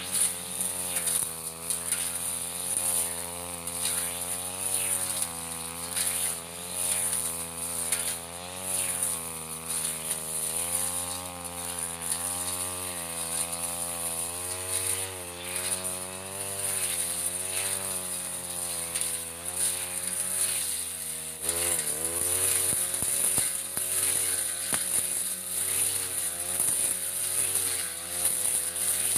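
Backpack brush cutter engine running under load, its pitch wavering as the blade works through thick grass. About three-quarters of the way in, the engine note dips sharply and picks up again, with more crackle of grass being cut.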